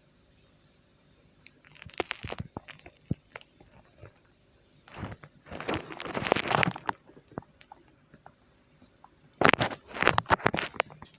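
Rustling, crackling rubbing of hands working over a person's back during an acupressure massage, in three spells of a second or two each.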